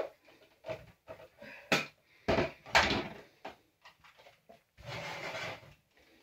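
Hollow knocks and clatter of a plastic toy mini wheelie bin handled with a plastic reacher-grabber: it is tipped over a cardboard box and set back down on a table. A few sharp knocks come two to three seconds in, then a rough scraping noise lasting under a second about five seconds in.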